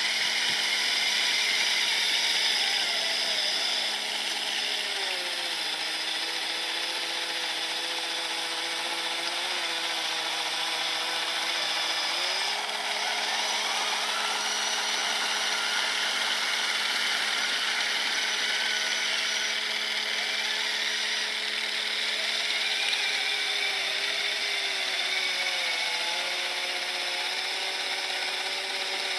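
Electric motor of a 3D-printed RC snowblower whining steadily like a small power tool. Its pitch drops about five seconds in, climbs back at about twelve seconds, and drops again near the end.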